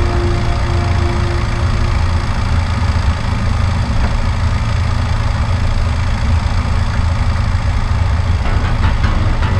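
Cockpit noise of a Diamond DA-40 single-engine light aircraft: the engine and propeller run with a steady low drone.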